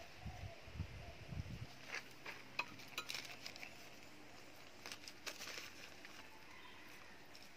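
Faint rustling and light, scattered clicks of hands working a cloth wrap and a plastic nursery bag, with a low rumble on the microphone for the first second and a half.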